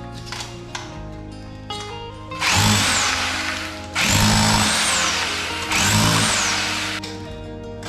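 Power drill run in three bursts of about a second and a half each, its motor whine climbing as it spins up and dropping as it is let off, while boring into the wall for a new electrical socket box. Background music plays under it.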